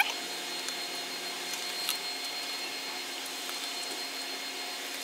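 Steady whirring hum in the background with a few light clicks and taps of a hand nut driver on screws and a plastic panel. The sharpest click, with a brief squeak, comes right at the start, and another about two seconds in.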